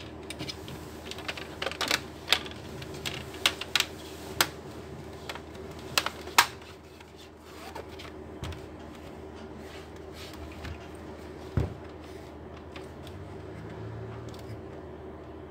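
Plastic clicks and snaps as an Acer Nitro laptop's screen bezel is pressed onto the display lid, a quick irregular run of sharp clicks in the first six seconds, then a single dull knock later, over a steady low hum.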